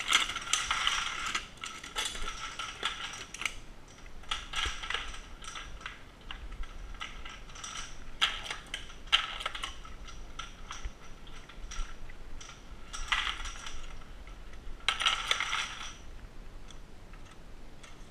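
Dillon SL900 progressive shotshell reloading press being cycled by hand: metallic clattering and rattling of the mechanism in bursts every few seconds, one burst per stroke of the press.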